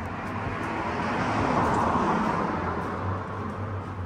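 A car passing close by: a rushing noise that swells to a peak about halfway through and fades again, over a steady low hum.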